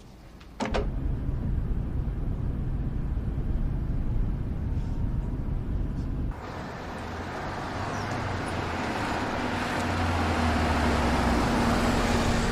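A car driving: low engine and road rumble that starts suddenly, then after a cut about six seconds in a broader road and traffic hiss that slowly grows louder, with a steady hum joining near the end.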